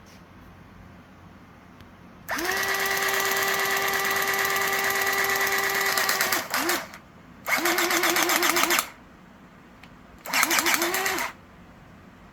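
Electric motor of an Izumi hydraulic crimping tool running in three bursts. The first lasts about four seconds at a steady whine. The two shorter runs after it have a pitch that wobbles about five times a second.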